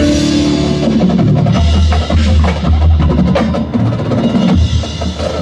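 High school marching band playing a loud, percussion-heavy passage: snare and bass drums strike a busy rhythm over low sustained notes, opening on a bright crash.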